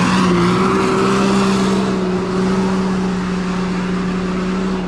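Sport side-by-side UTV engine held at high revs in one steady note as it speeds away up a snowy road, with a hiss of its tyres throwing snow over it. It fades slightly near the end.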